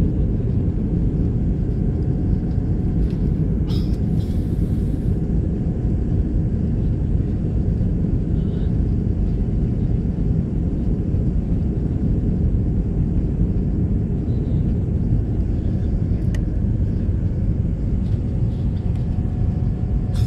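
Steady low roar of an Airbus A320's jet engines and rushing airflow, heard inside the passenger cabin as the airliner climbs out after takeoff.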